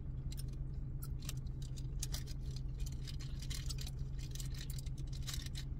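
Irregular light clicks from typing a text on a smartphone's touchscreen keyboard, over a steady low hum inside a car.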